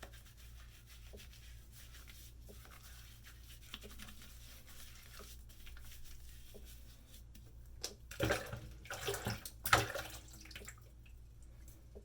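Wet shaving lather being squished and rubbed, faint at first, then louder in short rubbing strokes about eight to ten seconds in.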